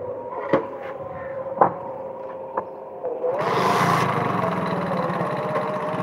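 A vehicle's engine runs with a steady hum, broken by a few sharp knocks. About three seconds in, a loud rush of wind noise sets in and stays.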